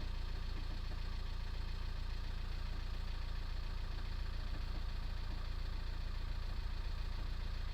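VW T5's 1.9-litre four-cylinder diesel idling steadily from a cold start with the clutch released, carrying the knocking rattle that is present only on a cold start and that the owner puts down to the engine or gearbox.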